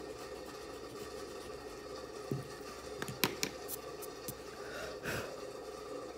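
Steady room hum with a few small sharp clicks and taps between about two and five seconds in, from drawing tools being handled: a stick eraser set down and a mechanical pencil taken up.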